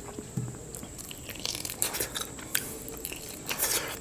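Close-miked eating sounds of spicy mutton curry: wet chewing and mouth smacks with scattered small clicks, and a short louder slurp near the end.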